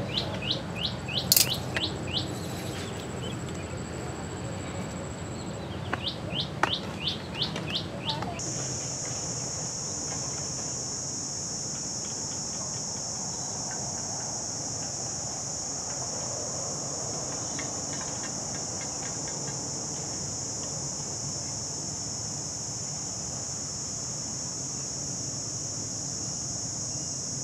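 Outdoor wildlife sounds: a bird gives two quick runs of short chirps in the first eight seconds. Then, about eight seconds in, an insect starts a steady high-pitched buzzing drone that carries on without a break.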